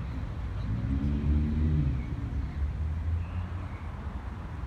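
A motor vehicle's engine over a low rumble. Its pitch rises and then falls between about half a second and two seconds in.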